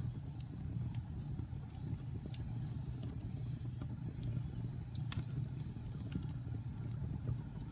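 Wood fire burning in a fireplace: a steady low roar with scattered sharp crackles and pops, the loudest about five seconds in.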